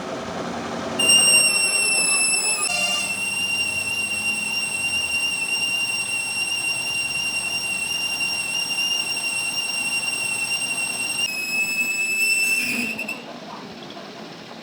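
A loud, steady, high-pitched whistling tone starts about a second in and holds for about twelve seconds. It breaks briefly near three seconds in, drops slightly in pitch near the end, then stops.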